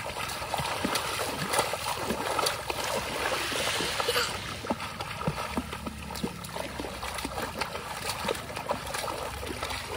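Water splashing and trickling continuously, with many small irregular spatters and no steady rhythm.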